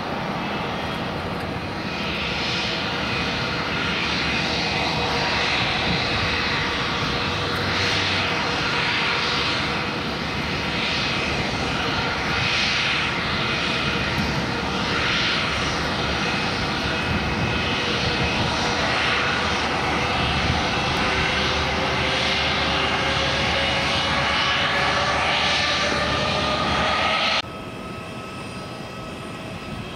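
Airliner engines running loud and steady, with tones in the sound that slowly rise in pitch. Near the end it drops suddenly to a quieter engine noise.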